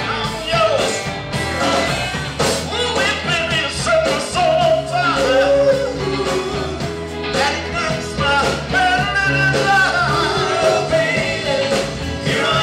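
Live band playing a song: a singer's vocal over electric guitar, bass and drums.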